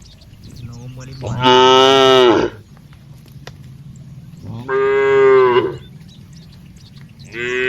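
Cattle mooing: three loud, drawn-out moos about three seconds apart, each lasting about a second, the last starting near the end.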